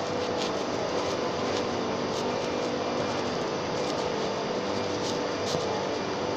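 Steady drone of industrial plant machinery: an even rushing hum with a constant low tone held under it, and a few faint ticks.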